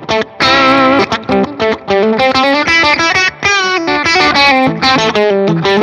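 Electric guitar played through a Fender Tone Master Pro modeler's Nashville-style preset with its Royal Tone effect engaged. It plays quick, lightly driven country licks of rapid picked single notes and double-stops, with a few string bends near the end.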